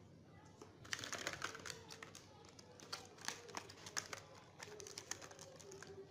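Handling noise: a quick run of small clicks and rattles, as of objects being picked up and set down on a surface. It starts about a second in and thins out after about four seconds.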